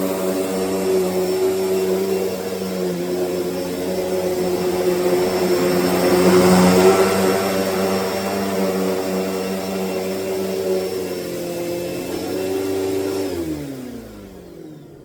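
Hoover Deluxe Elite Rewind upright vacuum cleaner running with a steady motor whine that swells louder for a moment mid-way. About thirteen seconds in it is switched off, and the whine falls in pitch as the motor winds down.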